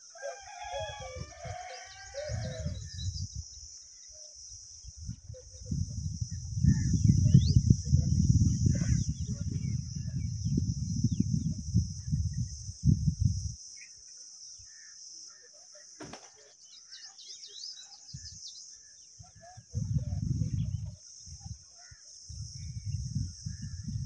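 A rooster crows once in the background near the start. Bursts of low rumbling noise on the microphone follow and are the loudest sound. A steady high insect drone and a few faint bird chirps run underneath.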